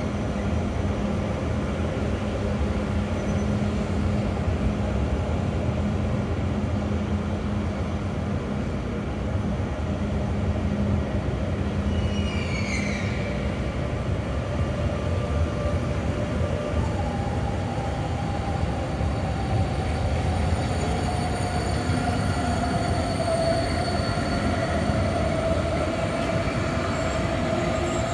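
Electric trains passing over a railway bridge: the steady rumble of a DB ICE rolling by, then, from about halfway in, a sustained whining, squealing tone from the arriving trains that slowly falls in pitch. A short falling chirp sounds once about twelve seconds in.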